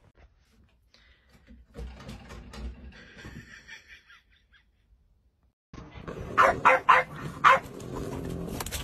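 French bulldog barking four times in quick succession, sharp and loud; before that, quieter scattered clicks and knocks.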